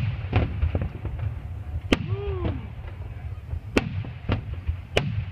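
Aerial fireworks shells bursting overhead: about five sharp bangs, irregularly spaced, over a steady low rumble.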